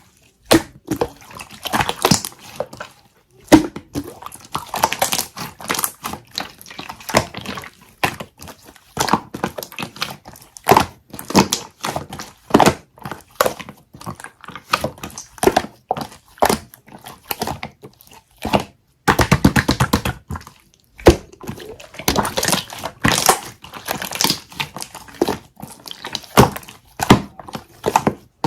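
Stiff, unmelted clear jelly slime being squeezed, poked and pressed by hand, giving a long uneven run of sharp wet clicks and pops. About nineteen seconds in, a second or so of dense rapid crackling.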